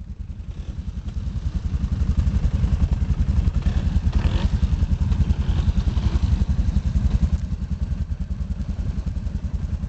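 ATV engine running at low revs with a steady low pulsing beat as the machine creeps slowly into deep creek water, growing louder about a second and a half in.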